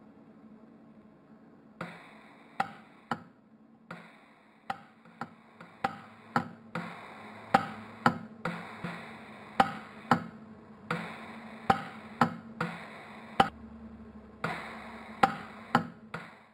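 Lampert PUK micro-pulse TIG welder firing single pulses on a gold ring under argon. Each pulse gives a sharp crack, about two dozen at uneven spacing starting about two seconds in. Between them is a hiss that comes and goes in stretches, over a steady low hum.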